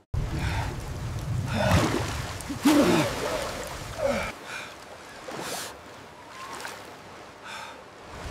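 AI-generated film sound of a man gasping for air and panting as he surfaces in a stormy sea, over a muffled underwater rumble that fades about four seconds in; after that come quieter breaths about once a second.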